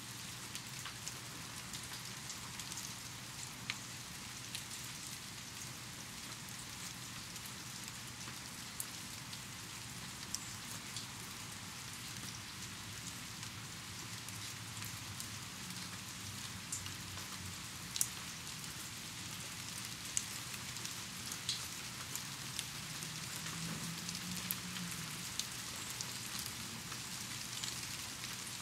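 Steady rain falling, with scattered louder drops ticking close by; the sharpest lands about 18 seconds in.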